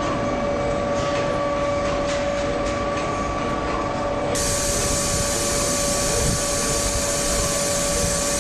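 Automated stator-lacing machinery running: a steady mechanical whir with a constant whine, turning brighter and hissier about four seconds in.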